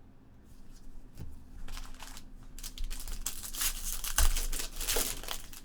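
Crinkling and tearing of trading card pack wrappers while cards are handled, the crackle growing busier and louder after about a second and a half, with a dull thump about four seconds in.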